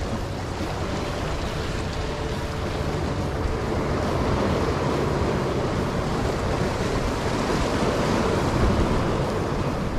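Small ocean waves washing and splashing against shoreline rocks, swelling louder in the middle and later part, with wind buffeting the microphone.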